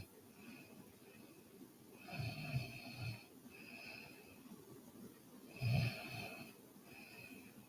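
A sleeping woman snoring: two rough, low snores, about two seconds in and about six seconds in, with quieter breathing between.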